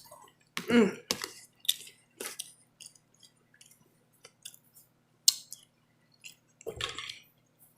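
A person eating close to the microphone: chewing and smacking of the lips and mouth in short, irregular clicks, with a brief voiced hum about a second in.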